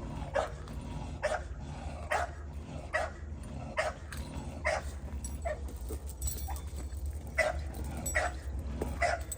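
A dog barking over and over, about once a second.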